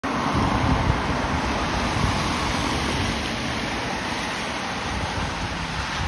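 Traffic on a wet road: a steady hiss of tyres on wet asphalt, a little louder in the first second or two as a car passes close by, over the low rumble of an approaching city bus's engine.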